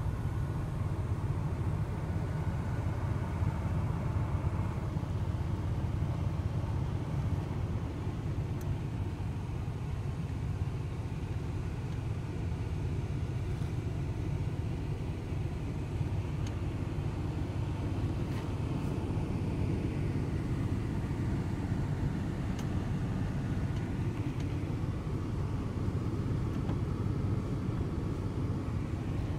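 1997 GMC Sierra 1500's Vortec 4.3 V6 gas engine idling steadily at a little under 1000 rpm, a low even rumble heard from inside the cab.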